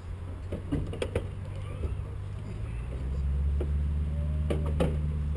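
Knocks and clicks of a person climbing into a biplane's open cockpit, over a steady low engine hum that gets louder about three seconds in; the biplane's own engine is not running.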